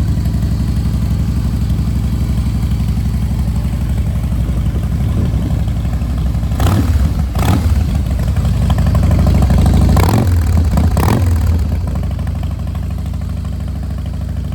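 Harley-Davidson Twin Cam 88 V-twin (1450cc) running through a Vance & Hines exhaust. It idles steadily, is blipped on the throttle twice a little past the middle and again a few seconds later, then settles back to idle.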